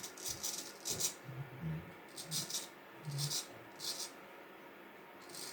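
Handling noises from a pack of vintage straight razors: short rustling scrapes and light rattles about once a second.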